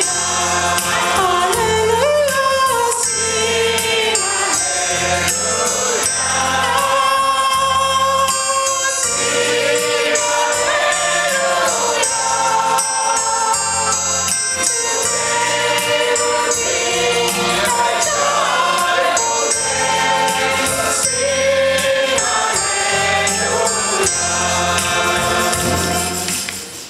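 Gospel music with a choir singing and instruments, fading out near the end.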